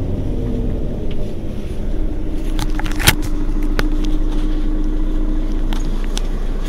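Mercedes-Benz Citaro facelift city bus's diesel engine idling steadily while the bus stands still, with a few sharp clicks around the middle, the loudest about three seconds in.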